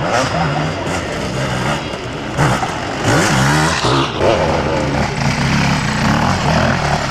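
Enduro motorcycle engine revving hard on a dirt forest track, its pitch rising and falling again and again as the throttle is worked.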